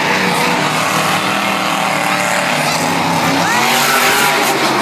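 Monster truck engines revving loudly at high power.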